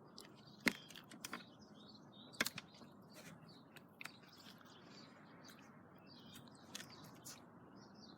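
Quiet room tone with a few scattered sharp clicks and taps, the loudest just under a second in and about two and a half seconds in, and birds chirping faintly in the background.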